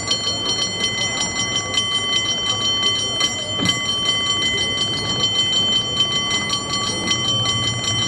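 San Francisco cable car bell rung by hand in fast, rhythmic strikes, its clear ringing tones carrying on between strokes.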